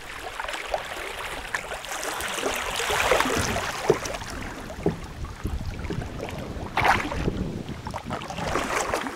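River current rushing and gurgling around a kayak running a shallow riffle, loudest a couple of seconds in, with a few sharper splashes now and then and some wind rumble on the microphone.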